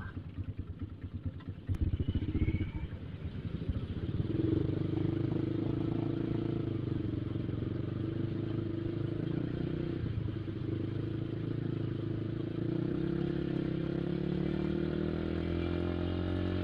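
Motorcycle engine idling with an uneven, choppy pulse for the first few seconds, then pulling away and running steadily, its pitch rising slowly near the end as it speeds up.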